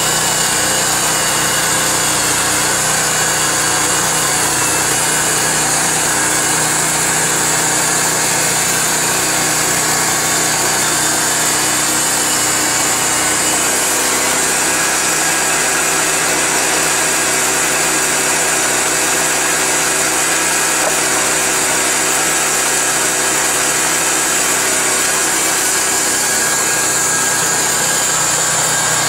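Harbor Freight bandsaw mill running steadily under load, its gasoline engine turning a 1½-inch Wood-Mizer Double Hard band blade through a log, with a steady high whine over the engine.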